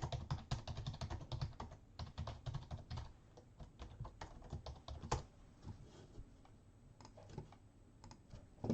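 Typing on a computer keyboard: quick key clicks for about three seconds, then slower, scattered keystrokes, with one louder click about five seconds in.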